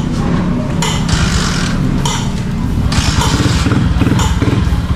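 Honda TMX 125 Alpha's single-cylinder four-stroke engine running fast and even, with throttle blips that push it up a little about a second in and again from about three seconds in.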